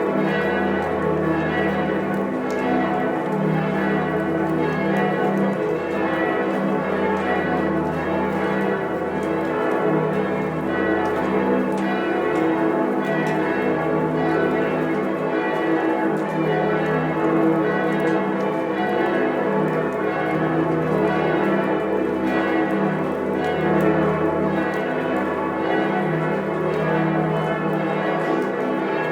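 Several church bells ringing together in a continuous full peal, their strokes overlapping into a dense wash of tones. A deep low bell swells and fades every second or two underneath.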